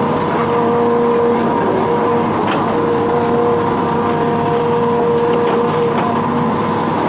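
Hitachi Zaxis 210F amphibious excavator's diesel engine running steadily, with a held whine over the engine noise that drops out briefly now and then.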